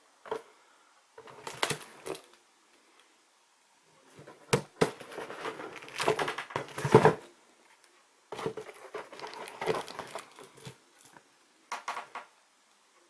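Cardboard fireworks box being handled and turned: irregular bursts of rustling and knocking with sharp clicks, loudest in the middle and again briefly near the end.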